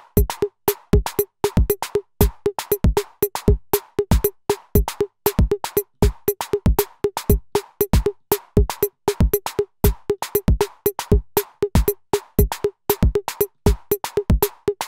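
Electronic drum pattern from drum voices triggered by a four-track trigger sequencer: low kick-like thumps, a repeated pitched hit and sharp high clicks, at about four hits a second in an uneven, shifting rhythm as individual tracks are edited.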